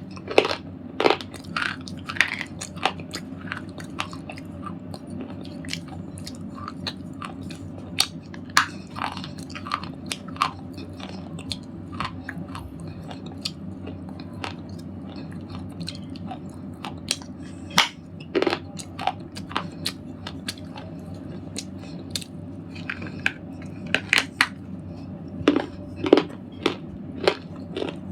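A red slate ball being crunched, giving irregular crisp cracks and crackles in clusters over a steady low hum.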